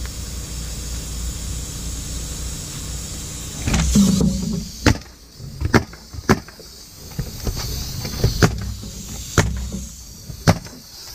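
Ridgid pneumatic coil roofing nailer driving nails through asphalt shingles: about eight sharp shots at uneven intervals, starting about halfway through, after a brief louder scuffle. A steady low hum runs underneath.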